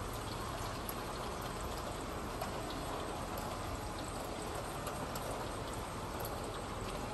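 Steady rain falling, with scattered individual drops tapping close by.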